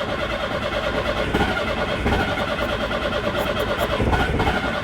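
Citroen GSA's air-cooled flat-four engine turning over on the starter motor in a steady, fast rhythmic cranking that does not catch, stopping at the end. Fuel is only just reaching it, so it cranks without firing.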